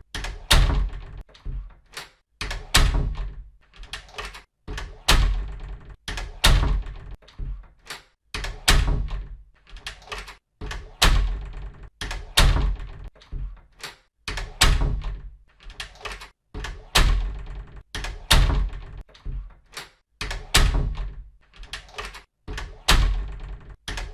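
A door being shut over and over, each close a solid thunk with a short ringing decay, about one every second or so.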